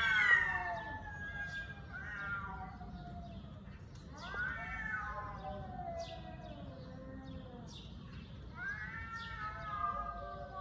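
Cat yowling: four long, drawn-out calls that slide down in pitch, the longest about two seconds, with short high chirps between them.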